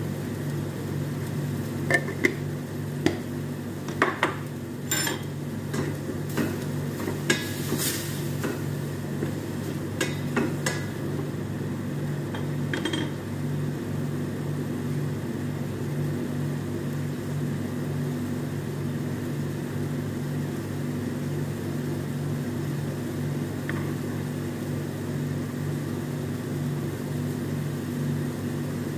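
Sharp clinks and knocks of metal on a stainless steel frying pan of minced beef, several in the first dozen seconds and then none, over a steady low hum that lasts throughout.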